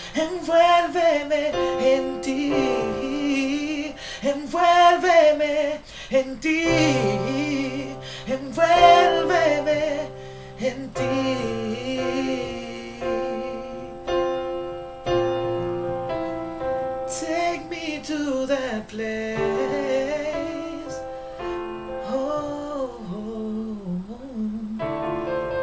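A man singing a slow worship song, his held notes wavering and sliding between pitches, over sustained chords on an electric keyboard. The voice drops out for short stretches, leaving only the keyboard chords.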